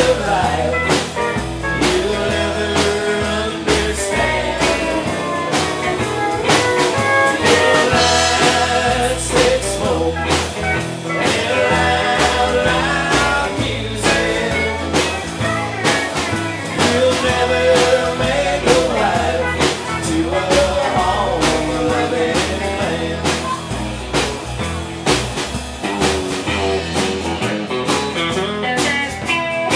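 Live country band playing a honky-tonk number: acoustic guitar, electric guitar and fiddle over a steady beat.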